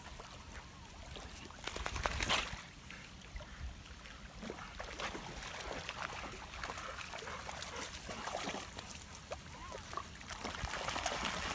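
Dogs swimming and wading in shallow lake water, the water splashing and sloshing around them in uneven bursts. It is loudest about two seconds in.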